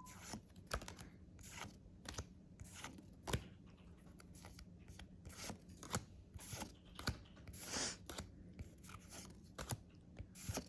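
Pokémon trading cards being handled and slid one behind another: soft, irregular clicks and light paper rustles, several a second.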